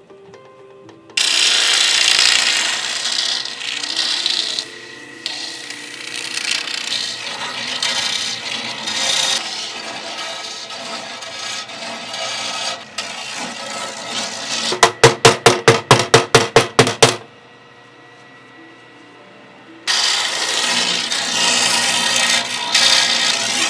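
A long metal rod rasping inside a hollow bamboo rod section as the bamboo is pushed and twisted down over it, a harsh scraping that swells and fades. A little past the middle it turns into about two seconds of quick, even strokes, about four a second, then pauses briefly before the scraping starts again.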